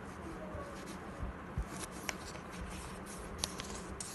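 A sheet of A4 paper being handled and folded by hand: light rustling with a few short crisp ticks spread through, over a faint steady hum.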